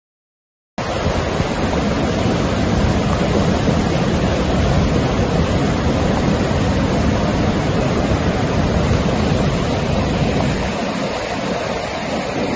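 Loud, steady rush of fast-flowing water, cutting in suddenly under a second in after a moment of dead silence.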